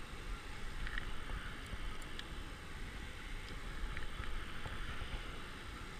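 Steady rushing of water pouring over a low river dam, with wind rumbling on the microphone and a few faint clicks.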